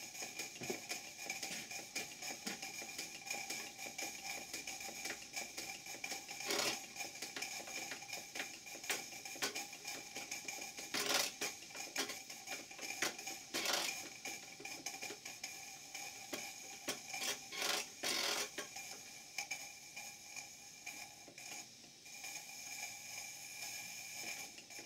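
Two live-steam model engines, a hypocycloidal engine and a beam engine, running together. Their valve gear and linkages make a steady patter of small clicks and taps, with a few louder knocks, over a steady hiss.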